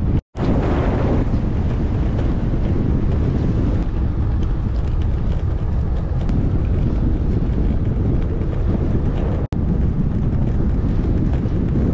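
Steady wind rumble on the microphone of a camera riding along on a moving bicycle, broken twice by a momentary drop to silence: once just after the start, and again about three-quarters of the way through.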